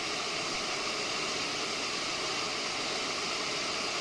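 Steady rush of river water, an even hiss with no breaks.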